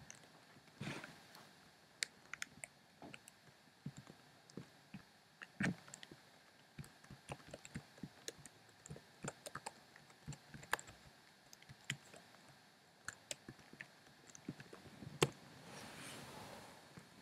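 Computer keyboard being typed on: irregular key clicks at an uneven pace, a few keystrokes much louder than the rest. A brief soft rushing noise swells near the end.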